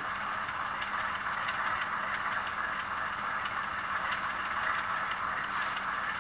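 TCS WOW diesel sound decoder playing an ALCO 244 turbocharged prime mover through a model locomotive's small speaker: a steady, hissy engine run with a low hum and faint, regular ticks.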